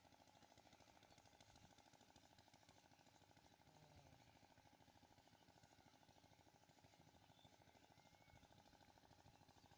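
Near silence, with a faint steady rapid pulsing like a distant small engine running.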